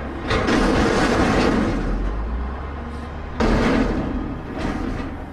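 Heavy truck sound effect: a low engine rumble under loud, noisy surges. The first surge starts about a third of a second in and a second comes sharply at about three and a half seconds.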